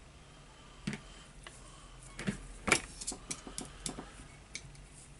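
Scattered small metal clicks and knocks of a screwdriver prying and tapping at the tool holder of a Makita HR2410 rotary hammer, working at a stuck retaining ball. There is one click about a second in, then a run of clicks, the loudest a little before halfway.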